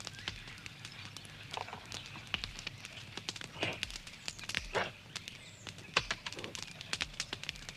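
Wood fire crackling and popping, with a few short vocal cries or grunts.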